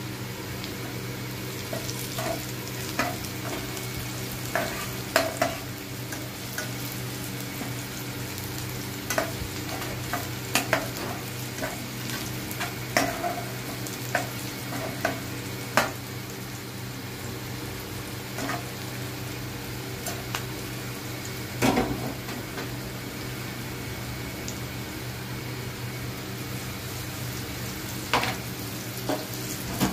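Sliced onions sizzling in hot oil in a black frying pan, with a metal spatula scraping and knocking against the pan at irregular moments as they are stirred. A steady low hum runs underneath.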